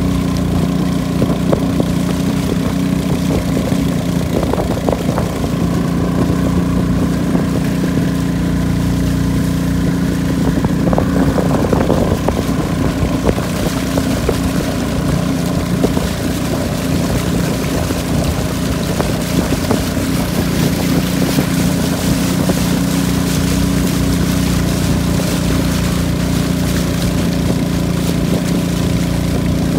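Long-tail boat's engine running steadily under way, a loud, even drone heard from aboard the boat.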